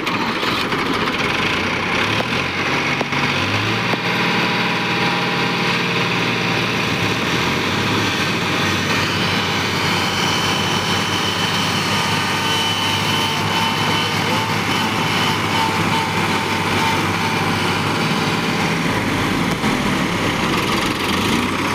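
Diesel engines of two Farmtrac tractors running hard as one tows the other, stuck in deep mud with a rotavator attached, on a chain. Steady engine drone whose pitch shifts a few seconds in and again near the end.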